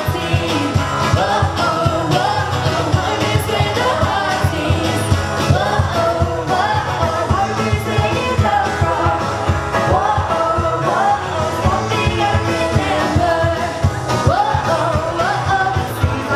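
Pop music with a singer's voice over a steady drum beat.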